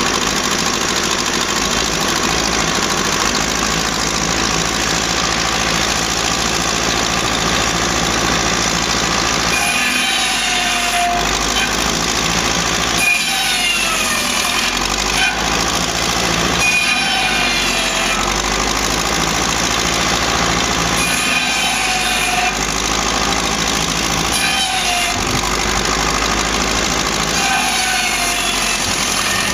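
Ferguson TED20 tractor running steadily, driving a Ferguson saw bench's circular blade at about 1300 rpm. From about ten seconds in, logs are cross-cut about seven times, each cut a short whine from the blade that bends in pitch as it bites through the wood.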